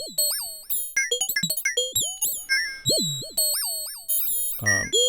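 Modular synthesizer patch of sine-wave oscillators through a VCA, its pitch stepped by a René sequencer clocked from a Maths envelope. It plays short, fast-decaying blips several times a second in an uneven rhythm, many of them swooping sharply in pitch.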